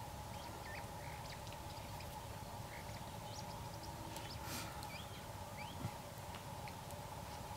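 Faint, scattered bird chirps and short rising whistles over a steady low background hum.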